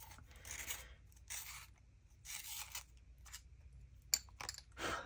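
Pencil being turned in a small hand-held sharpener: a run of short, faint scraping strokes, about one a second.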